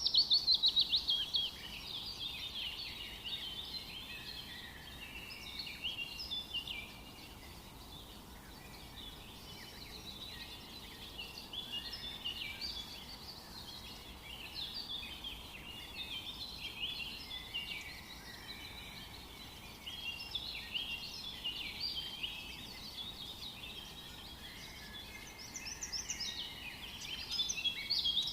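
Forest songbirds singing together in a dense chorus of overlapping chirps, whistles and trills. A loud, rapid trill falling in pitch opens it, and the song swells again several times.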